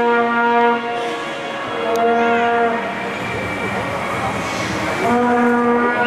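Spectators' horns blown in three long held notes, the middle one higher in pitch, over a crowd cheering a swimming race.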